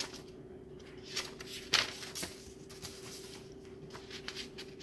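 Paper being handled: soft rustles and crinkles with a few light taps, the sharpest just under two seconds in, over a faint steady hum.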